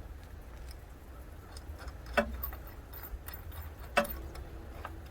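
Small hard clicks and ticks from handling an LED pod light and its metal mounting hardware on the bracket: two sharper clicks about two seconds apart, with lighter ticks between, over a steady low rumble.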